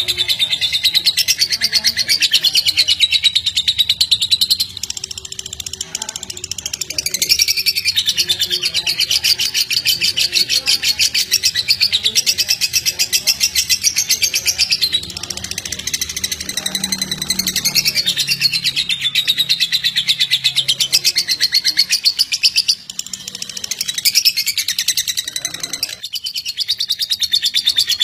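Fischer's lovebird singing its long ngekek: an unbroken, very fast, high chattering trill that dips briefly a few times. It is sung in the stuttering style Indonesian keepers call "konslet".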